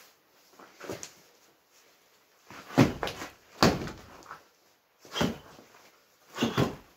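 Punches landing on a heavy punching bag, each a dull thud. There is a faint one about a second in, two loud ones near 3 and 4 seconds, another past 5 seconds, and a quick pair near the end.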